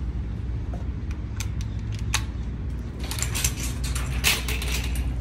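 Wire metal shopping cart being handled and pushed over concrete: metal rattles and sharp clicks, a few at first, then thick from about three seconds in, over a steady low rumble.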